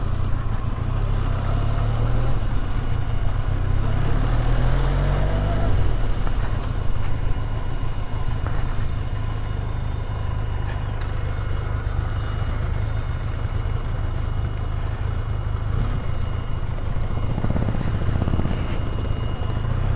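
Benelli TRK 502's parallel-twin engine running as the motorcycle rides a rough dirt track. It rises in pitch a few seconds in as the bike accelerates, then holds steady.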